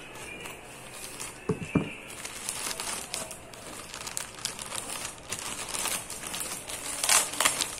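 Thin plastic packaging bag crinkling and rustling as it is unwrapped and pulled open by hand, with a couple of sharp clicks about a second and a half in and louder crackling near the end.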